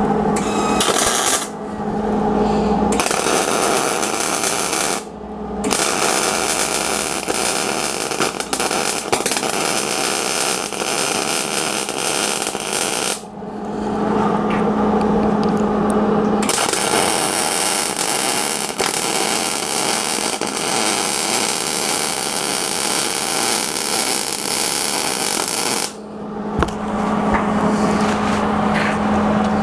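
MIG welding arc crackling in several runs of a few to about ten seconds, with short breaks about a second and a half, five, thirteen and twenty-six seconds in. A steady low hum carries on through the breaks.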